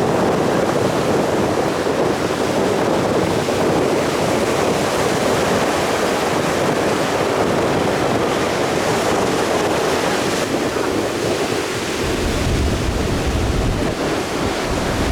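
Wind blowing over the microphone on top of a steady wash of sea waves, with heavier low wind buffeting in the last few seconds.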